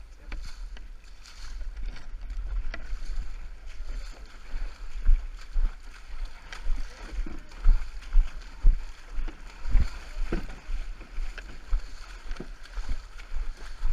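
Canoe being paddled on a river: paddle strokes and water sloshing, with steady wind rumble on the microphone and a run of irregular low thumps in the middle stretch.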